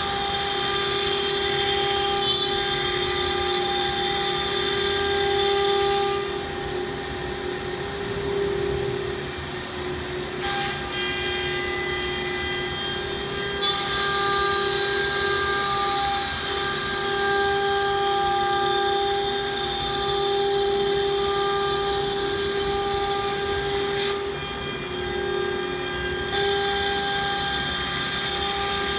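The 9 kW spindle of an ATC CNC router whines steadily as the bit cuts through a wooden board. A higher cutting noise swells and eases as the tool moves along its path: loud at first, quieter for a spell, loud again from about halfway, and again near the end.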